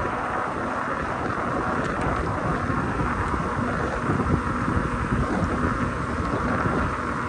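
Wind rushing over the microphone of a moving Cyrusher XF800 e-bike, over a steady low rumble from the ride.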